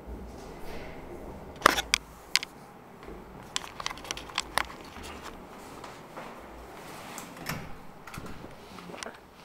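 Handling noise from a handheld camera being moved about: rubbing and rustling with a low rumble, broken by sharp clicks and knocks, three close together about two seconds in and a cluster a second or two later.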